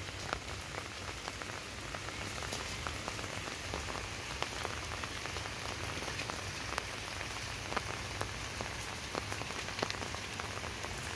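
Light rain pattering steadily: an even hiss with many small drop ticks scattered through it.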